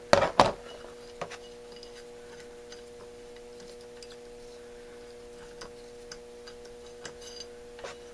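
Two sharp metallic clinks about a third of a second apart as a socket and extension knock against a Marvel Schebler carburetor's rusty float bowl, then a few faint taps of tools on the bowl, over a steady hum.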